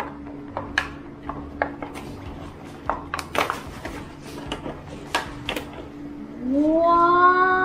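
Plastic toy packaging being pulled open by hand: irregular sharp crackles and clicks. Near the end a voice calls out one long, drawn-out word.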